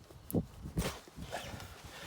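Three short knocks, about half a second apart.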